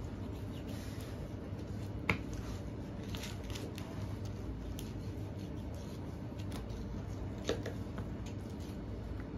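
Knife slicing and scraping through raw beef as a hindquarter is deboned: soft, irregular cutting sounds, with two sharp clicks, about two seconds in and near the end, over a steady low hum.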